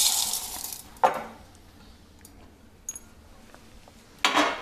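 Dry roasted lentils (chana, urad and moong dal with dried chillies) poured from a steel plate into a small steel grinder jar, a hissing rattle of grains that fades out, then a sharp steel clink about a second in. A short rustling burst near the end.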